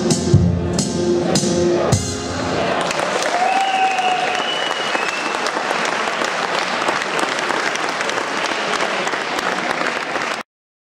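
Dance music with a strong beat ends about two seconds in, and an audience applauds, with a short cheer among the clapping. The sound cuts off suddenly near the end.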